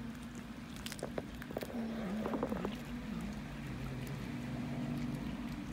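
Cats chewing raw fish: scattered wet clicks and crunches, clustered a little past the middle. Under them runs a steady low hum whose pitch dips a few times.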